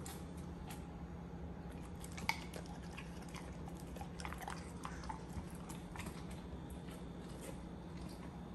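A Bernese mountain dog biting and chewing fresh strawberries: irregular short clicks from its mouth, the sharpest about two seconds in.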